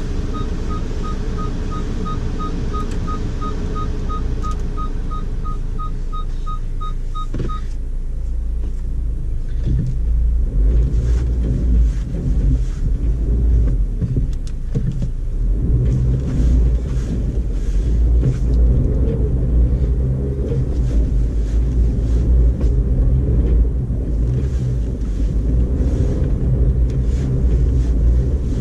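2012 Audi A4 quattro heard from inside the cabin while stuck in deep snow: an electronic warning beep repeats about three times a second for the first seven or so seconds over the idling engine. Then the engine is worked harder with a heavy, uneven low rumble as the driver tries to drive the car off the snow it is grounded on.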